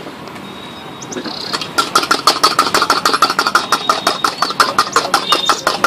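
A small engine starting up about a second and a half in, then running nearby with a rapid, even putter of about eight beats a second.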